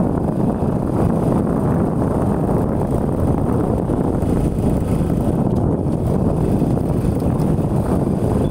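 Motorcycle riding along a dirt track: a steady low rumble and wind buffeting on the microphone, with no change in pace.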